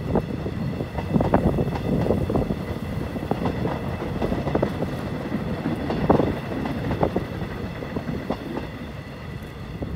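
Electric multiple-unit commuter train running past with a steady rumble, its wheels clacking over the rail joints in irregular knocks.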